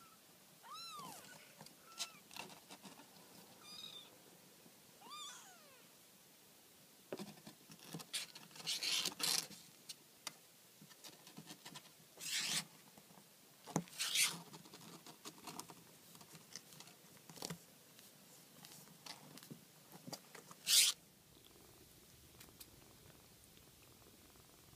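Young kittens mewing a few times in the first five seconds, each a short cry that rises and falls in pitch. This is followed by rustling and scraping as they move around in a cardboard box, with several louder scrapes and the loudest, sharpest one about 21 seconds in.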